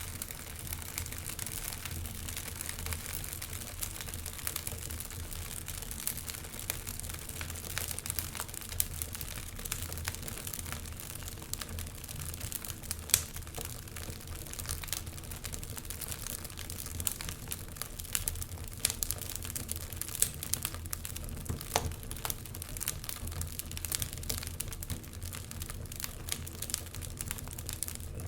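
Wood fire crackling in a fireplace, with many irregular sharp pops and snaps over a steady hiss. A low, steady wind rumble runs underneath.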